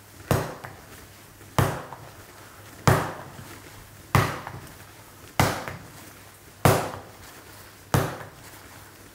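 Soft, sticky bread dough slapped down hard onto a wooden bench and folded over, a sharp slap about every second and a quarter, seven in a row, each fading quickly. It is hand kneading by the slap-and-fold method, stretching the dough to build its strength.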